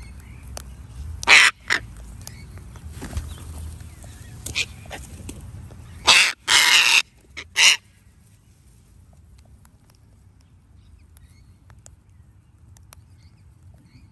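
Sulphur-crested cockatoos in a feeding flock giving harsh screeches: two about a second and a half in, then a louder cluster of four between six and eight seconds in. After that the flock is quieter, with only faint scattered clicks.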